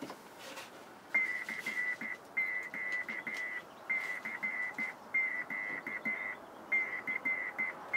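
Hand-sent Morse code (CW) from a telegraph key: a high steady beep switched on and off in dots and dashes, in runs of characters with short gaps, starting about a second in.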